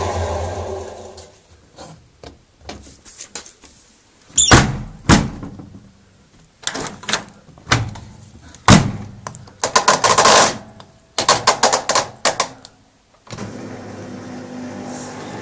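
Hoover Quattro 1100 washing machine: its motor runs down over the first second, then a series of sharp clicks and knocks follow, some single and loud, others in quick clusters, before the machine starts running steadily again about 13 seconds in.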